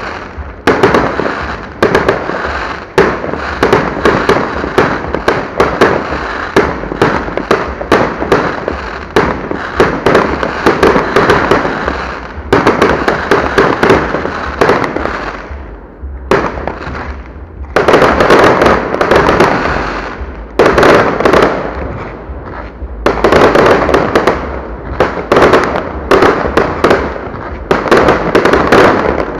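Fireworks display: aerial shells bursting in rapid, overlapping volleys, loud sharp bangs and crackle several times a second, with a few short lulls between volleys in the second half.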